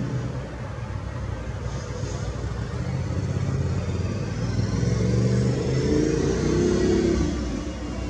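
Road traffic: a steady low rumble with a motor vehicle passing, its engine swelling from about three seconds in and dropping away shortly before the end.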